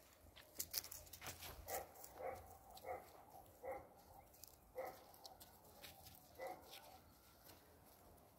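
A dog giving faint, short yips, about six of them spaced irregularly, with a few light clicks and rustles early on.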